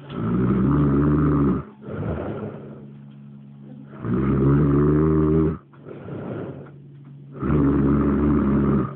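Heavy snoring: three long, loud snores of about a second and a half each, coming roughly every three and a half seconds, each followed by a shorter, quieter breath out.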